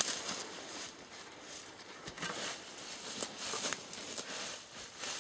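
Shovel working in leaf-littered soil: scattered scrapes and crunches through dry fallen leaves, with a sharp knock right at the start.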